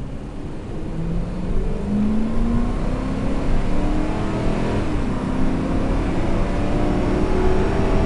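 Cab-interior sound of a Ford 5.4 L Triton gas V8 accelerating in four-wheel drive, the engine note rising, dropping at an automatic upshift about five seconds in, then rising again. No whine from the front differential or transfer case.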